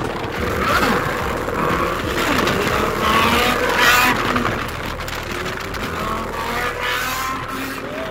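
Sport motorcycle engines revving and accelerating over wind rush, the engine pitch rising and falling several times and loudest about four seconds in.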